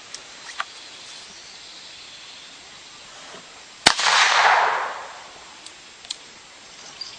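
A single .22 pistol shot, a sharp crack, followed at once by about a second of rushing noise that fades away. A few faint clicks come before and after, and rapid high chirps sound near the end.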